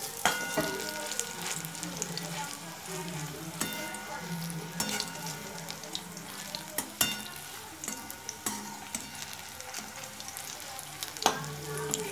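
Coriander-leaf fritters sizzling and crackling as they deep-fry in oil in a wok. Now and then a perforated metal spatula knocks and scrapes against the wok, and each knock rings briefly.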